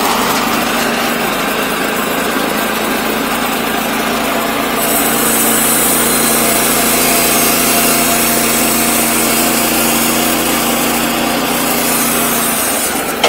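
Sawmill engine running steadily while the saw cuts through timber, three stacked beams at once. A higher hiss joins about five seconds in and stops around eleven seconds, and the engine note drops just before the end.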